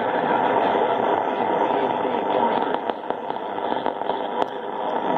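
Shortwave AM reception of the IRRS NEXUS IBA broadcast on 9640 kHz through a receiver's narrow filter: a steady, muffled rush of static with the station's audio buried in it. The signal fades a little from about three seconds in, with a few static clicks.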